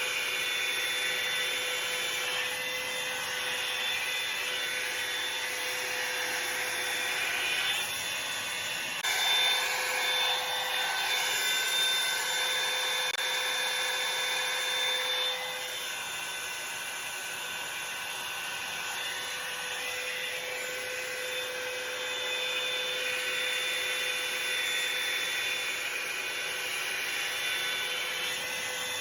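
Revlon hot-air brush hair dryer running: a steady blowing rush of air with a high motor whine. It grows louder about nine seconds in and drops back to a lower, steady level about six seconds later.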